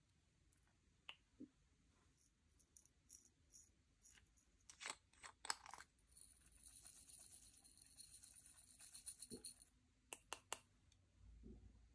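Faint handling sounds from slime and makeup being worked by hand: scattered soft clicks and small pops, with a few seconds of light scraping in the middle.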